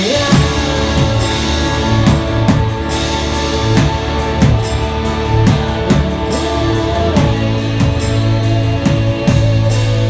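A live rock band playing, with a hollow-body electric guitar strummed over bass and drums. Steady drum and cymbal hits keep the beat.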